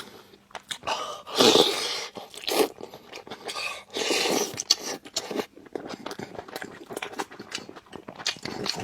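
A person eating close to the microphone: wet chewing and lip smacking in many short clicks, with two louder rushing sounds about a second and a half and four seconds in.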